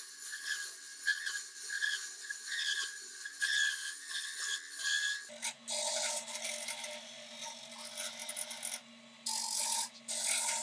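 Mini wood lathe running with a file held against the spinning wooden handle, scraping and shaping the wood over the motor's steady whine. About halfway through the sound changes abruptly to a lower motor hum, and the scraping swells twice near the end.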